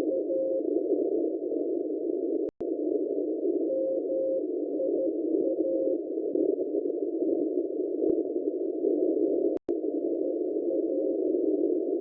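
Morse code (CW) received on a shortwave radio through a narrow audio filter. A faint tone keys short and long elements in groups, first about four seconds in and again near the end, over a louder band of static hiss. The audio cuts out briefly twice.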